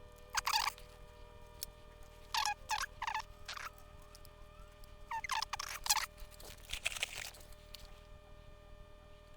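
Solder flux sizzling and crackling in short bursts, about six times, as a soldering iron melts solder onto the switch's pins. A faint steady hum sits under it.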